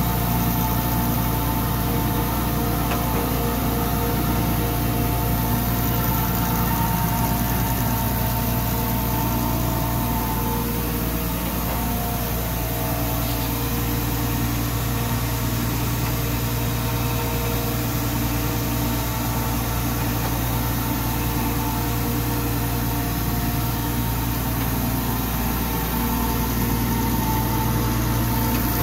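Darbert DB400X1500 hydraulic surface grinder running under power: a steady machine hum with a strong low drone and several steady higher tones.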